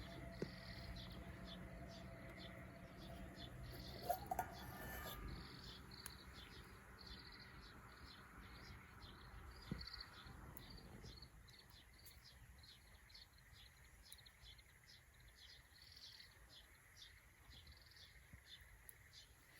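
Faint, regular chirping of an insect, about two short high chirps a second, over a low background noise that drops away about halfway through. A brief rising squeak with a knock comes about four seconds in.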